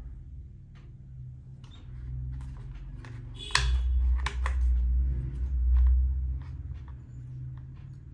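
Handling noise: light clicks and knocks over a low rumble that swells louder from about three and a half seconds in to about six and a half.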